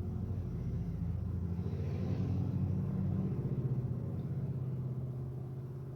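A steady low mechanical rumble, easing slightly toward the end.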